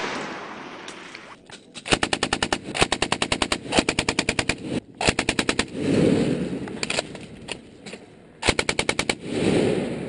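Belt-fed machine gun firing about six short bursts of rapid shots, with brief pauses between them. A rumbling echo rolls back off the range after the later bursts.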